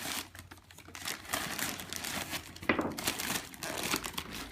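Cardboard box and packing paper being handled and opened, with irregular crinkling and rustling throughout.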